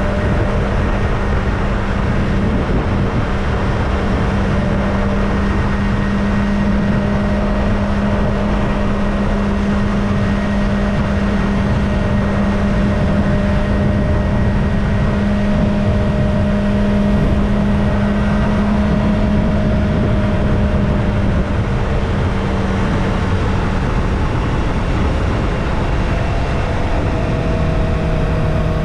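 Kawasaki Ninja ZX-25R's 250 cc inline-four engine on its stock exhaust running at a steady cruise, under heavy wind and road noise; the engine note drops a little near the end.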